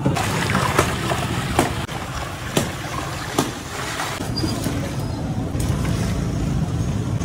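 A long metal ladle stirring crushed ice in a large steel pot, with several sharp knocks and clinks in the first few seconds, over a steady low rumble.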